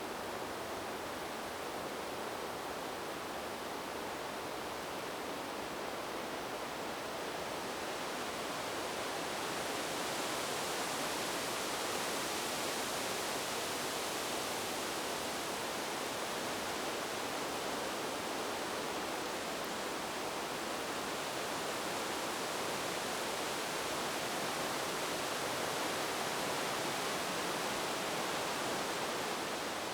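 Wind blowing through tree leaves, a steady rustling hiss that swells into a stronger gust from about eight seconds in and holds there.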